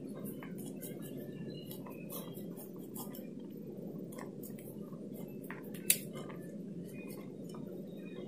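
Block of soft homemade mozzarella grated on a flat stainless steel hand grater over a plastic plate: irregular light scraping with small metallic clicks and taps, one sharper click about six seconds in.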